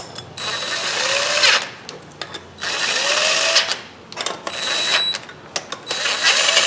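Cordless power driver spinning nuts down onto the fuel-rail studs of a Honda 3.5 GDI V6 in about four short runs, each starting with a brief rising whine as the motor spins up. The nuts are only being snugged lightly, to be torqued to spec afterwards.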